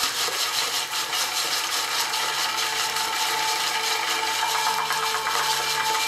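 A steady, dense crackling and rustling sound effect in a live radio drama, standing in for something moving unseen nearby. A faint steady tone sits under it from about two seconds in.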